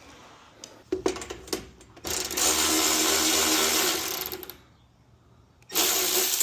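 Power driver running under load, likely backing out fasteners: one run of about two and a half seconds, then a second shorter run starting near the end.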